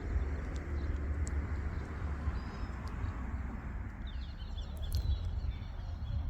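Steady wind rumble buffeting the microphone outdoors. A few faint bird chirps come in about four seconds in.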